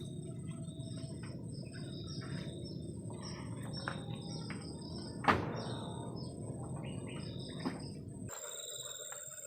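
Crickets chirping in short, repeated high chirps over a steady high-pitched trill, with a low, even rushing noise beneath that cuts off abruptly near the end. A single sharp crack, the loudest sound, comes a little past halfway.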